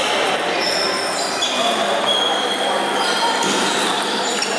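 Busy table tennis hall: plastic balls clicking on tables and bats from several games at once, mixed with background chatter, and a few brief high squeaks.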